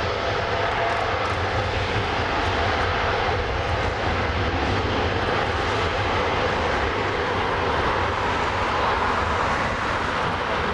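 Boeing 787-8's GEnx-1B turbofan engines running at takeoff thrust as the airliner rolls down the runway: a steady, even jet noise that holds its level throughout.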